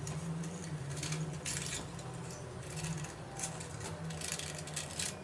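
Faint, scattered small clicks and crinkles from handling, over a faint low hum. They come from a crumpled tinfoil tray held in the hand and a paintbrush picking up petal dust from a ceramic plate and working it into gumpaste petals.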